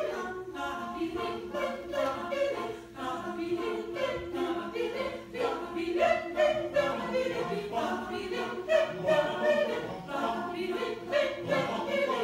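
Mixed choir singing a cappella, one note held steadily low in the texture under moving, rhythmic sung syllables.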